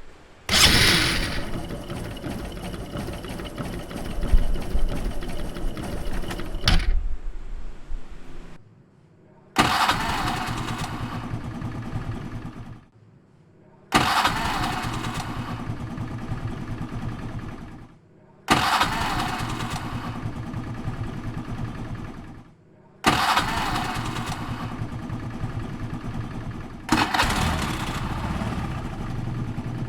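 Small motorcycle engines being started on the electric starter, about six times in a row: each time a brief starter whir, the engine catching, then a few seconds of idling before it cuts off.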